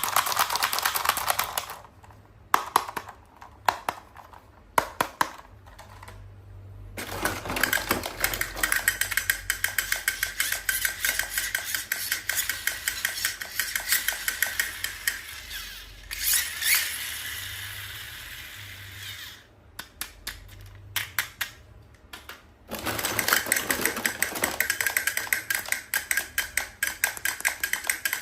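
Close-up handling sounds from unboxing a toy: a few sharp taps in the first seconds, then long stretches of rapid crackly clicking, with a pause in the middle.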